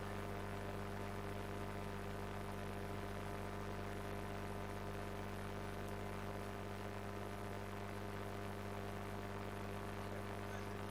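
Steady electrical mains hum with a faint buzz, unchanging throughout; no handling or other sounds stand out above it.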